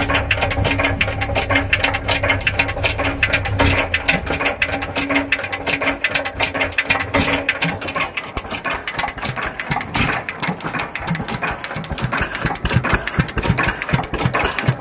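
12 hp Hercules stationary engine running, a fast, even mechanical clatter of rapid clicks. A low steady hum underneath stops about four seconds in.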